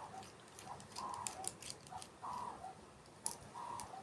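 A bird repeating a short two-note call about once every second and a bit, with a few light clicks, the sharpest about three seconds in.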